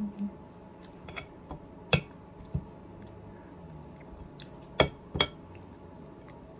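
Metal fork clinking and scraping against a plate of noodles, a few sharp clinks with the loudest about two seconds in and a close pair near five seconds.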